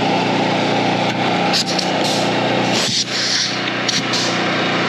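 Semi truck's diesel engine running steadily, with several short hisses of compressed air as the trailer's air lines are reconnected and the trailer airs up.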